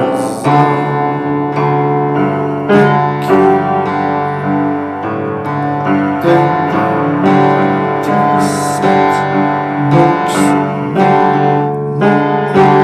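Piano playing an instrumental passage of sustained chords, with new notes struck about every second.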